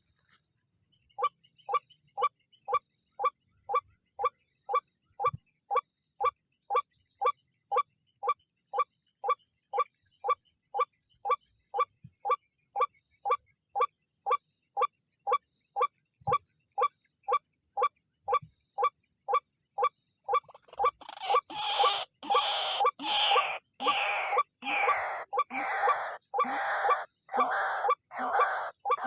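White-breasted waterhen calling: a long, regular series of short notes, about two a second. About 21 s in, louder and harsher overlapping calls join in.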